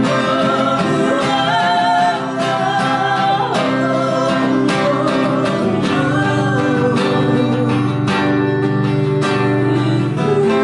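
A woman singing a melody lead over a strummed acoustic guitar, live.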